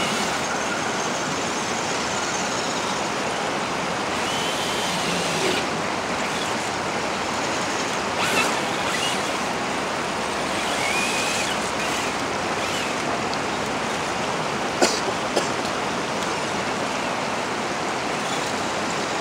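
Steady rushing of shallow river water flowing over the rock shoals, with a few faint brief whines and one sharp click about fifteen seconds in.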